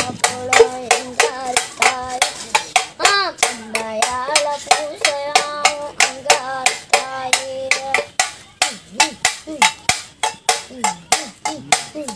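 An empty tin paint can, hung from the shoulder and played as a drum, beaten with a stick in a fast, steady folk-drum rhythm in the manner of a pambai or melam. A child's voice sings a melody over the beat, dropping away about two-thirds of the way through while the drumming carries on.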